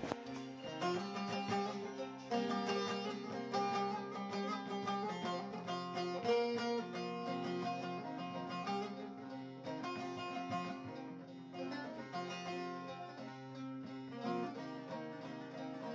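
Two bağlamas (Turkish long-necked saz lutes) playing an instrumental interlude of a Turkish folk song, plucked melody notes over steady low notes.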